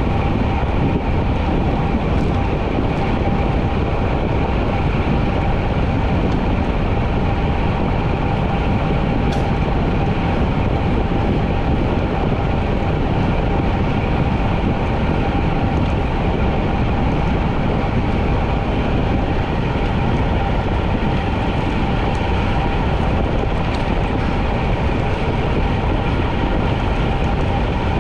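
Steady wind noise and tyre hum from a road bike ridden at speed, heard on a camera mounted on the bike, with a faint steady whine in the middle.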